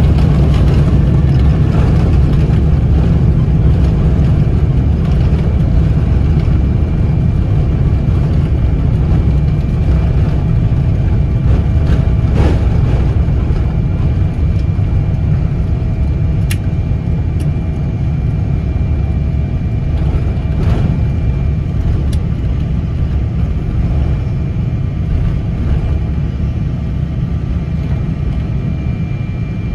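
Cabin noise inside a Boeing 777-200ER airliner during landing: a steady deep rumble of engines, airflow and airframe that slowly eases, with a few faint clicks.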